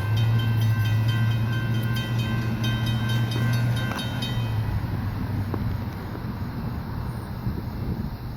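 A CSX GE CW44AC diesel locomotive running under load as it passes with an empty hopper train, a steady low engine drone that fades after about four seconds. Steady higher-pitched tones sound alongside it and stop at about the same time.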